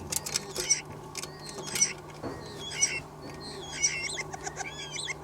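Starlings calling: short squeaky, clicking calls that come in bursts about once a second and grow busier near the end.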